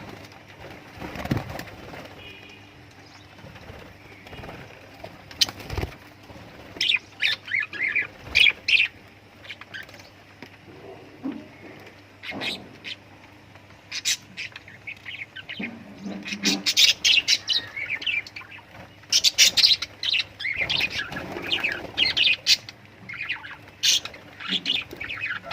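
Lovebirds chirping in rapid clusters of short, high-pitched calls with brief lulls between, busiest in the second half, along with a few sharp taps.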